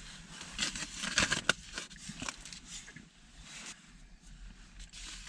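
Irregular rustling and crinkling handling noise, with a sharp click about one and a half seconds in.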